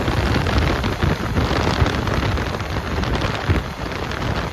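Steady wind noise buffeting the microphone over the low rumble of a moving motorcycle, a Bajaj Pulsar N160 on the road.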